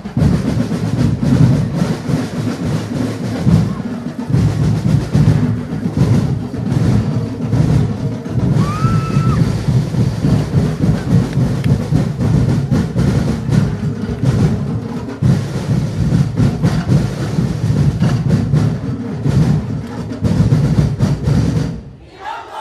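Massed festival drums of a street-dance percussion ensemble beating fast and loud without a break, then stopping abruptly near the end.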